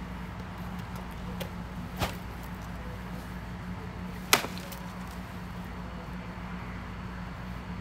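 Two sharp snaps about two seconds apart, the second louder, over a steady low hum.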